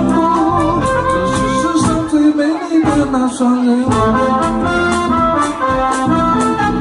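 Live band music with a man singing into a microphone through a PA, a dance number with keyboard and drums. The bass drops out for about two seconds near the middle, then comes back.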